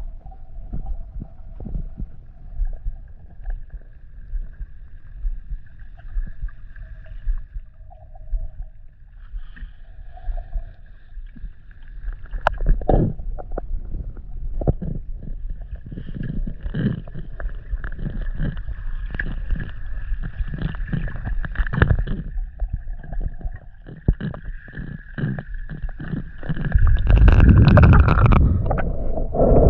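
Water noise picked up by an underwater camera: a steady low rumble with scattered knocks and clicks and a faint steady whine, swelling to a loud gush of water about three seconds before the end.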